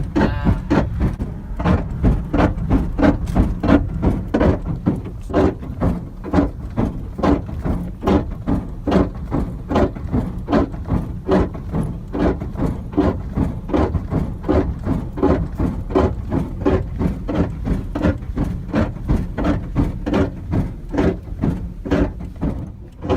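Car driven slowly on a damaged tire: a regular thumping about two to three times a second, once per wheel turn, over a steady low road rumble. The thumping stops shortly before the end.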